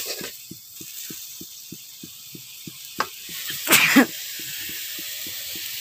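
Wet spice paste of garlic, ginger, chilli and turmeric sizzling in an aluminium kadhai: a steady hiss with soft pops about three to four times a second. A short clatter about four seconds in is the loudest sound.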